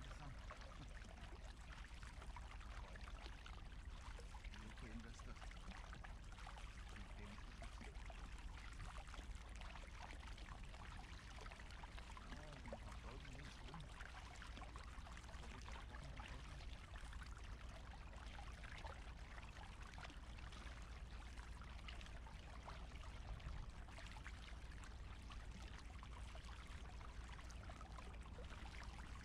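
Double-bladed kayak paddle splashing and water dribbling off the blades with each stroke, as an inflatable kayak is paddled through calm water. Faint and continuous, with a steady low rumble underneath.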